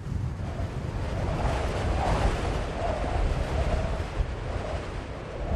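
Desert wind ambience from a Tusken Raider and Jawa camp sound-effect loop: steady wind noise with a low rumble, swelling about a second in, and a faint wavering whistle over it.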